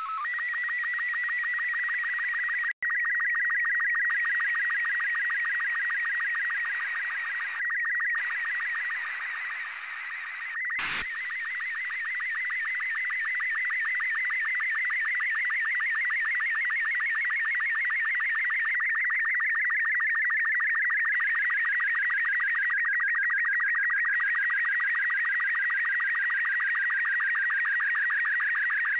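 Slow-scan television (SSTV) image signal from the LAPAN-A2 (IO-86) satellite, received on an RTL-SDR in FM: a high warbling tone with a fast, even line-by-line ripple as the picture is sent. There is a brief dropout about three seconds in and a short crackle about eleven seconds in.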